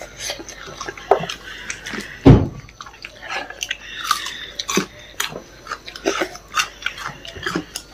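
A person chewing food close to the microphone, with irregular wet mouth clicks and smacks. There is one louder thump a little over two seconds in.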